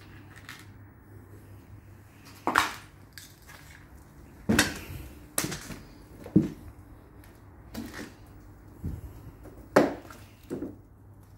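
Footsteps crunching and clattering over broken tiles and rubble, about seven sharp crunches at irregular intervals.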